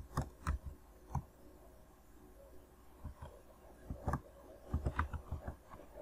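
Keys tapped on a computer keyboard while a password is typed: a few separate taps, a pause of about two seconds, then a denser run of taps and clicks about three seconds in.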